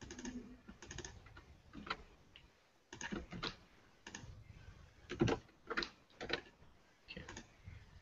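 Typing on a computer keyboard: irregular keystroke clicks, with a few louder strokes about five to six and a half seconds in.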